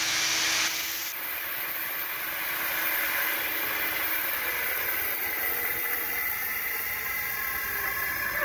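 Angle grinder running steadily under load, grinding down a small steel ball held in an old gear to make it smaller.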